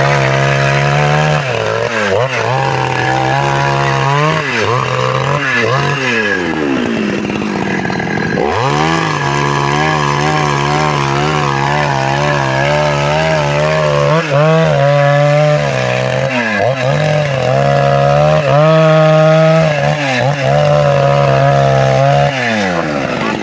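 Husqvarna two-stroke chainsaw running at high revs while cutting wood. Its engine note drops sharply and climbs back several times as the chain bites into the wood and clears.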